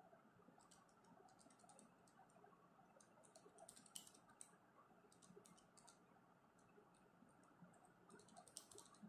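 Faint clicks of calculator keys being pressed in quick runs, several times over, against quiet room hiss.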